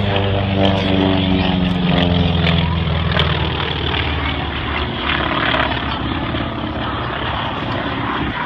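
Propeller airplane engine droning in flight, its pitch sliding down over the first few seconds, then a rougher, noisier drone.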